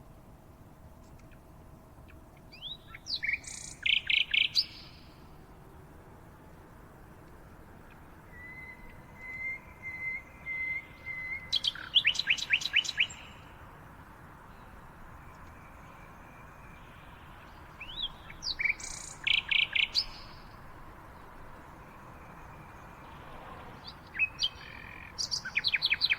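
Songbirds singing: short bright song phrases come back every six or seven seconds, with a fast run of falling notes about twelve seconds in. A steady, even trill comes from another bird just before that run.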